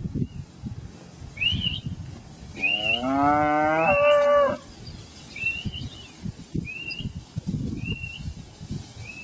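A young beef calf moos once, a single drawn-out call of about two seconds, about two and a half seconds in. Underneath, low rustling and thumps from the herd moving through the grass, and a bird repeating a short rising chirp about once a second.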